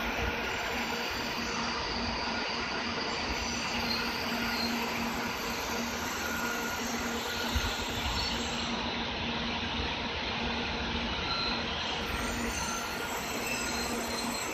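700 series Shinkansen train running slowly past the platform as it arrives and brakes: a steady rush of wheels on rail, with a few thin whining tones over it.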